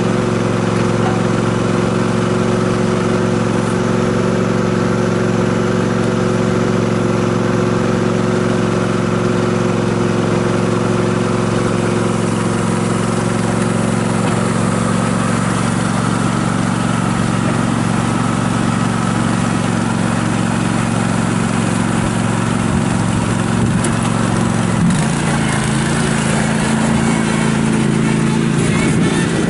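Kubota G2000 lawn tractor's 20 hp V-twin gas engine running steadily. About 25 seconds in its note changes as the tractor pulls away.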